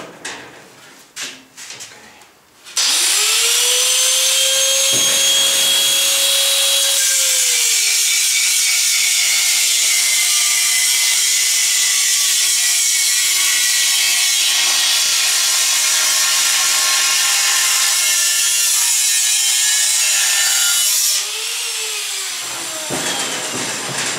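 An angle grinder with a cutting disc spins up about three seconds in, then cuts into the steel wall of a gas tank, throwing sparks. Its motor pitch drops and wavers under the load. About 21 s in the cut eases off, and the grinder winds down and stops shortly before the end, after a few light handling knocks at the start.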